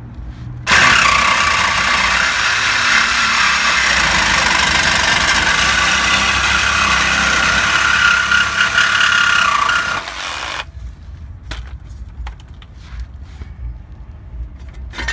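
Porter-Cable 20V cordless reciprocating saw with a Diablo bi-metal blade sawing through the exhaust pipe just ahead of a rusted-on catalytic converter. It starts about a second in, runs steadily for about ten seconds and cuts off suddenly. Light knocks and clinks follow, with a sharp clank at the very end.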